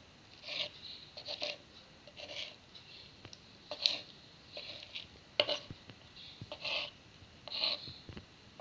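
Small kitchen knife chopping boiled chicken livers on a wooden cutting board: about a dozen short cutting and scraping strokes at an uneven pace, with a sharp tap now and then as the blade meets the board.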